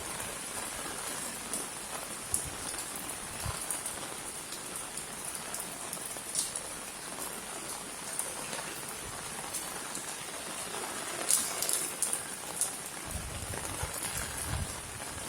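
Steady rain falling on a courtyard, a continuous hiss with scattered sharper drips and splashes, a few louder ones about two-thirds of the way through.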